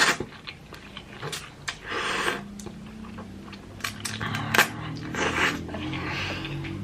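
Close-miked eating of thick ramen noodles: wet chewing clicks and two short slurps, one about two seconds in and one near five seconds. Soft background music with steady low notes comes in about halfway through.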